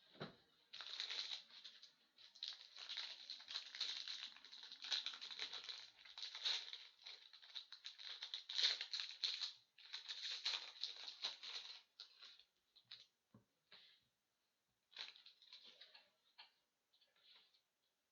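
Crinkling and rustling of plastic or foil trading-card packaging being handled and torn open, in a dense run for about eleven seconds and then in a few scattered crackles.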